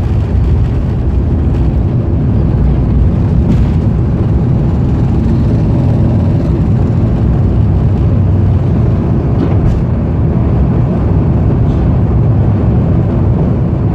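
Steady low rumble of an Airbus A350's Rolls-Royce Trent XWB engines and airflow heard inside the cabin during takeoff.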